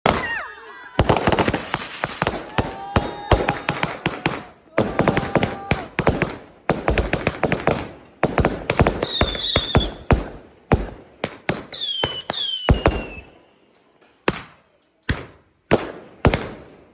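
Aerial firework cake firing: a rapid series of sharp bangs and crackling pops in dense runs, thinning to a few separate bangs near the end. Short high whistling tones falling in pitch cut through twice, near the middle.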